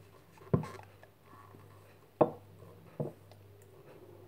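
Three light knocks and clicks from a plastic thermos jug being handled as tea is poured from it into a ceramic mug.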